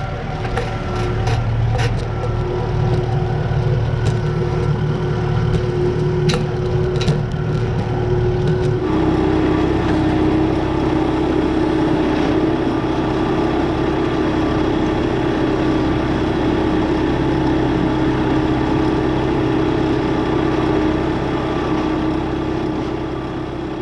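Kubota M4062 tractor's 3.3-litre four-cylinder diesel running steadily under load while pulling a land roller over grass, with a few sharp clicks in the first seconds. About nine seconds in the hum shifts suddenly to a slightly lower, stronger tone.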